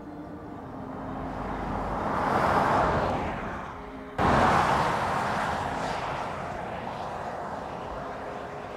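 Toyota Grand Highlander HybridMax SUV driving past: tyre and road noise swells to a peak about three seconds in. After an abrupt cut it is loud again and fades steadily as the SUV drives away.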